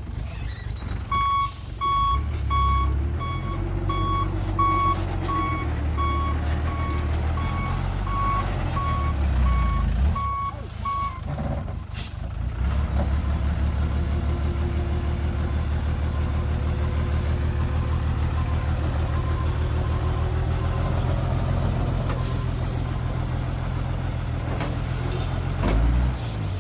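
Heavy machine's reversing alarm beeping at an even pace, a little under two beeps a second, over a diesel engine running. About eleven seconds in the beeping stops, a sharp click follows, and the engine runs on loud and low, with a few faint beeps later.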